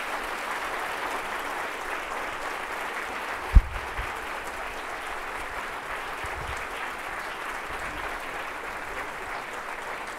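Audience applauding steadily, with a single low thump about three and a half seconds in.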